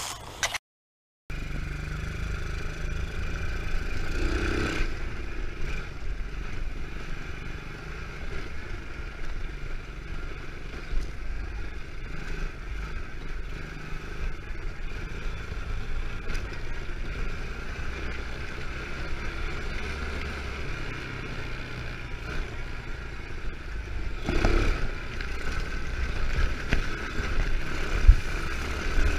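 Small quad ATV engine running steadily while it is ridden. The sound begins after a brief gap about a second in, and swells briefly about four and twenty-four seconds in.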